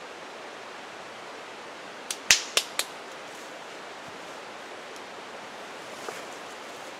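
Steady rushing of a rain-swollen mountain creek, flowing hard. A little after two seconds in, four sharp clicks in quick succession come from rigging a hammock at a tree, with one fainter click near the end.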